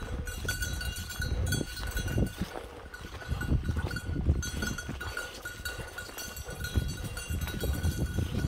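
Bird dog's bell ringing as the dog moves through the cover: a thin, high ringing that keeps coming and going, over footsteps on a gravel road.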